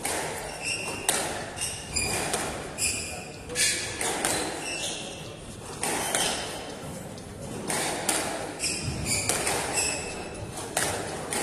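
Squash rally: the ball struck by rackets and smacking off the court walls about once a second, echoing in the enclosed court, with short squeaks of court shoes on the wooden floor between the hits.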